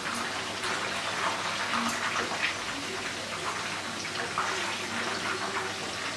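Chicken pieces coated in cornflour and flour batter frying in hot oil, a steady sizzle with many small crackles.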